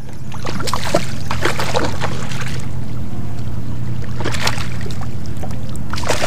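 Water splashing and lapping against a kayak in irregular short slaps, over a steady low hum.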